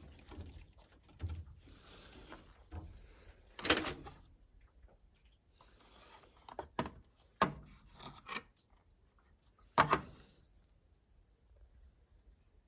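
A handful of separate sharp knocks and clacks with quiet between them, the loudest a little under four seconds in and again near ten seconds in.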